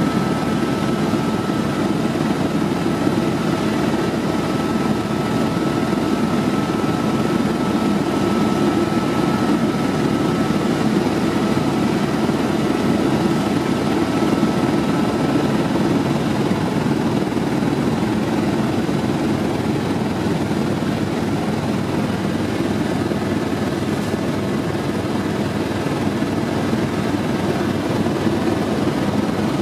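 Helicopter in flight heard from inside the cabin: a steady, loud drone of engine and rotor. A thin steady whine sits over it and drops away about halfway through.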